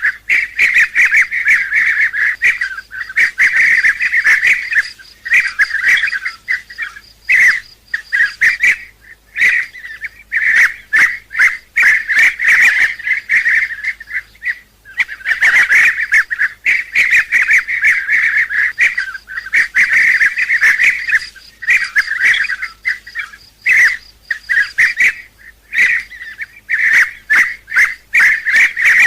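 Bee-eaters calling: a dense run of rapid, overlapping rolling calls that pauses briefly every few seconds before starting again.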